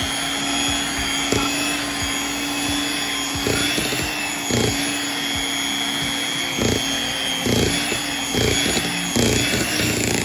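Electric hand mixer running steadily, its beaters whirring through thick cake batter as red food colouring is beaten in. Irregular low knocks come through the motor hum from about three seconds in.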